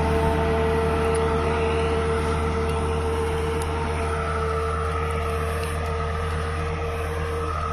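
Tractor's diesel engine running steadily under load as it pulls a cultivator through the soil, slowly growing fainter as it moves away.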